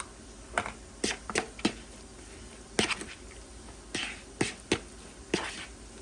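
Scattered clicks and taps of kitchen utensils, about a dozen irregular strikes, some followed by a short scrape.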